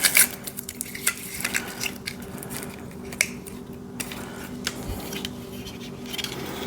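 Clicks and light metallic clinks of a flux-core welding wire spool being handled, a cluster of the loudest ones right at the start, over a faint steady hum.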